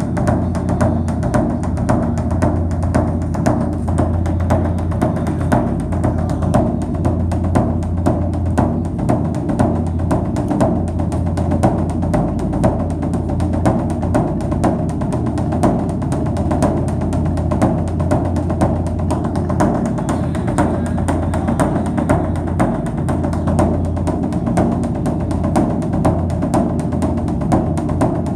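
Background music carried by a steady, evenly repeating drum beat.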